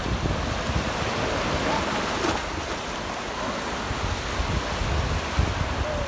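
Sea surf washing onto a beach, a steady wash of waves, with wind buffeting the microphone in uneven gusts.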